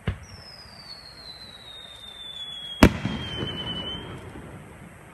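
Aerial firework shell: a thump as it launches, then a whistle that falls slowly in pitch for about four seconds, and a loud sharp bang about three seconds in, trailing off in a rumbling echo.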